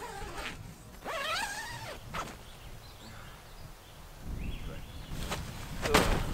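Nylon tent door zipper being pulled open, a buzzing rasp that rises in pitch as it runs along the curved door, with short rustles and clicks of the tent fabric as people move out. A low rumble begins about four seconds in.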